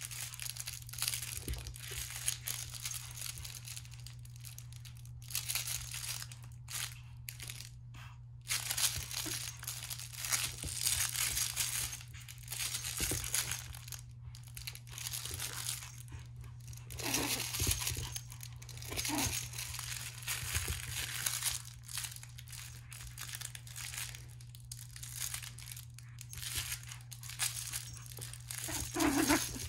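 A crinkly fabric tug toy rustling and crackling unevenly as a three-month-old Pomeranian puppy tugs and shakes it, with a few brief puppy growls a little past halfway and near the end.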